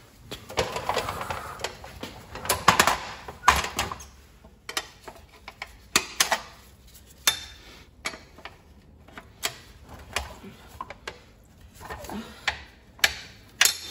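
Metal parts and hand tools clinking and knocking at an uneven pace, with some rustling of handled parts in the first few seconds, as a small-engine pressure washer is worked on.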